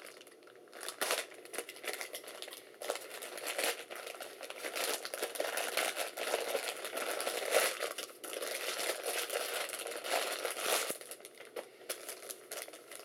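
Packaging being opened by hand: packing material crinkling and crackling in irregular spurts, with a few sharp clicks.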